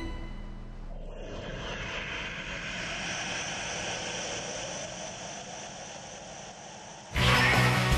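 Music fades out, leaving a steady rushing noise for about six seconds. Near the end, loud music cuts in suddenly.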